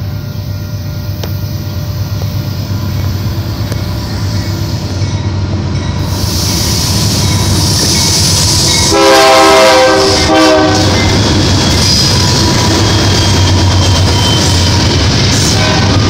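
BNSF manifest freight train approaching and passing, its diesel locomotives' rumble growing louder. The lead locomotive sounds its multi-tone air horn about nine seconds in, a blast followed by a short second one, the loudest sound here. Then the passing locomotives and freight cars keep up a steady heavy rumble of engines and wheels on rail.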